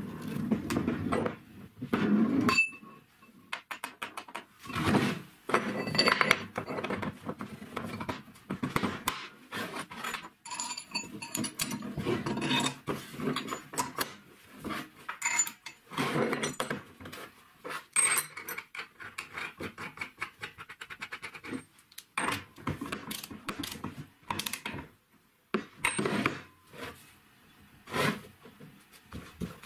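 Steel parts handled on a wooden workbench: angle brackets, washers and a nut clinking and being set down, and a steel tube knocking and sliding on the wood, in irregular knocks and short scrapes.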